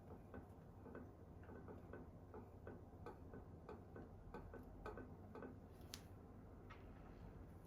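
Faint, even ticking at about three ticks a second, stopping about five and a half seconds in, followed by a single sharper click.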